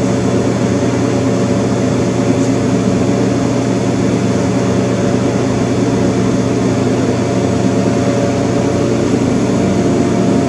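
A steady mechanical hum made of several held low tones, unchanging in level throughout.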